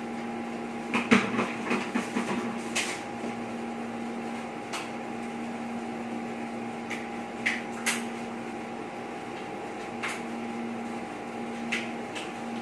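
Front-panel buttons of an HDT Premier 98i karaoke DVD player being pressed to scroll its song list: a quick run of clicks about a second in, then single clicks every second or two. A steady hum runs underneath.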